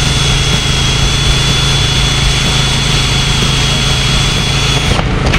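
Electric sander running steadily on epoxy-coated oak rails, a low hum under a high-pitched whine, switched off near the end.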